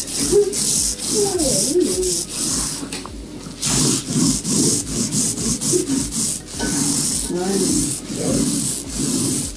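A hissy rubbing, scraping noise that comes in short stretches with brief breaks, dropping away for a moment about three seconds in.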